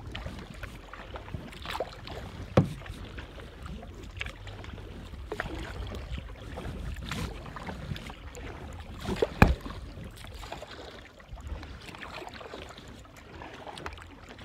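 Kayak paddle strokes: the blades dip and splash in calm water, with dripping between strokes. Two sharp knocks stand out, about two and a half seconds in and just past the middle, over a low wind rumble on the microphone.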